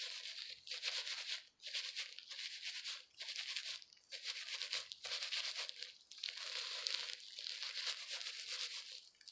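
Disposable plastic gloves crinkling and rubbing through wet, dye-soaked hair as hair colour is worked in. The rustling comes in strokes about a second apart, then runs on more steadily near the end.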